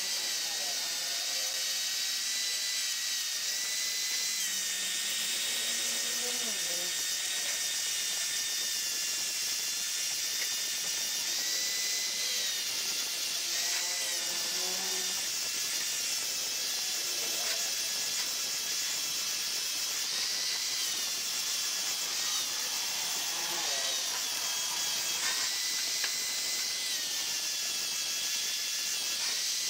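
Handheld electric angle grinder running continuously against a rusty steel bar, grinding off heavy rust. Its high steady whine sags briefly in pitch each time the disc is pressed into the metal.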